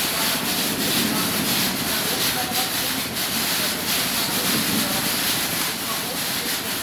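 Steady mechanical noise of a cherry packing line running: conveyor belts and singulator carrying loose cherries, with many faint ticks throughout. Voices murmur underneath.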